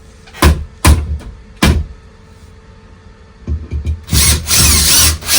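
Three sharp knocks on the wooden base in the first two seconds, then a power drill runs for about a second, drilling into the shower tray base.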